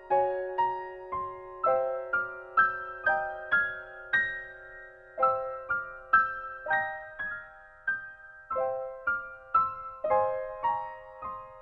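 Background music: a slow keyboard melody of single struck notes, about two a second, each ringing and fading.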